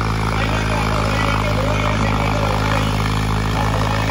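Diesel tractor engine running steadily, with faint voices in the background.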